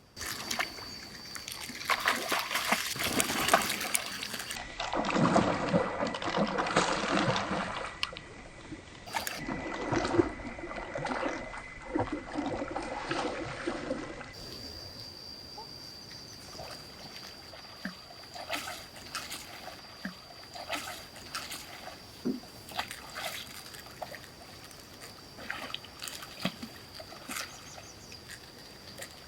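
Water splashing and sloshing with many sharp clicks and knocks, louder through roughly the first half and then quieter and more scattered.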